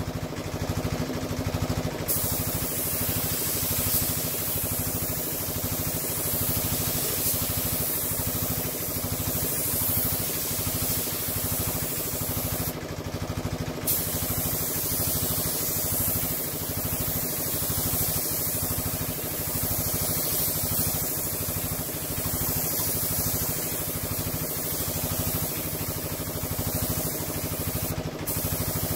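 Air compressor running steadily with a fast low pulsing, under the hiss of a compressed-air paint spray gun spraying a coat of paint. The hiss stops briefly three times: near the start, about halfway and near the end.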